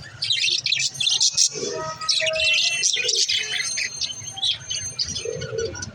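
Baby budgerigars chirping continuously in many rapid, overlapping high chirps.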